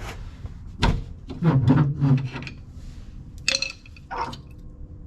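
Several sharp knocks and clanks of car parts being handled, the last two near the end leaving a faint metallic ring.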